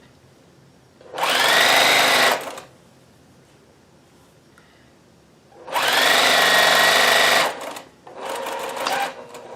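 Juki TL-2010Q straight-stitch sewing machine stitching in three runs: two loud runs of a second and a half to two seconds, each speeding up as it starts, then a shorter, quieter run near the end.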